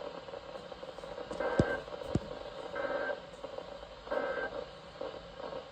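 NOAA Weather Radio's end-of-message SAME data bursts: three short, buzzing digital tone bursts about 1.3 seconds apart, marking the end of the broadcast alert. They come through a weather radio receiver, with a couple of faint clicks in between.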